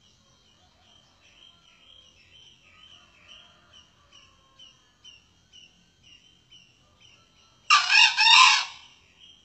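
Male junglefowl crowing once near the end, a short crow of about a second in three quick parts. It sounds over a faint, steady chirping about twice a second.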